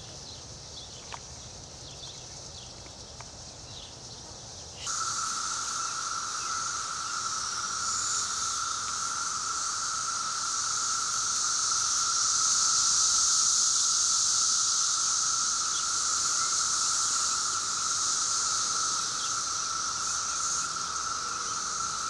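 Chorus of 17-year periodical cicadas: a steady, high buzzing drone, faint at first, that comes in loud and abruptly about five seconds in and holds unbroken with two pitches at once, a shrill high one and a lower one.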